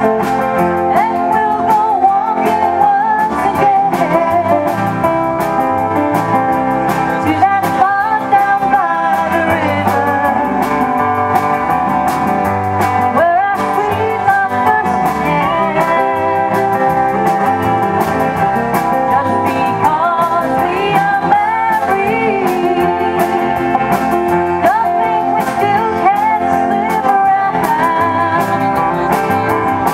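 Live country band playing a song: strummed acoustic guitars, electric guitar and drums, with a gliding melody line on top.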